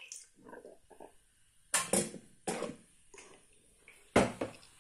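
A few sharp knocks and clatters of hard objects being handled, in quick succession about two seconds in and again, loudest, near the end.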